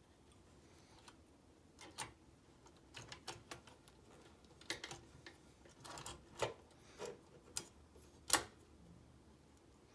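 Metal parts of an Oliver typewriter clicking and clacking irregularly as they are jiggled and seated into place by hand, with one sharper clack near the end.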